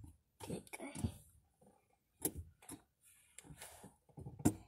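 Soft whispered or muttered voice with scattered clicks and knocks of handling inside a car, two sharper knocks about two seconds in and near the end.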